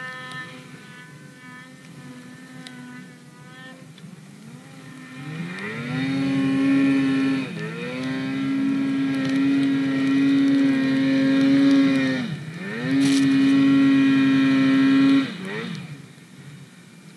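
Polaris RMK two-stroke snowmobile engine, running steadily at part throttle, then revving up about five seconds in and held at high revs through deep powder. The revs dip briefly twice as the throttle is eased, then drop away near the end.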